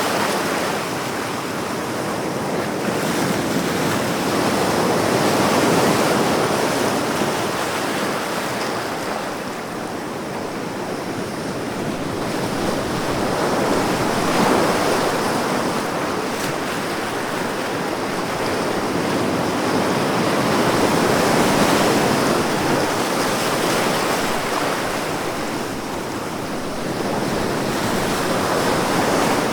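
Ocean waves: a continuous surf noise that swells and eases slowly, cresting about every seven or eight seconds.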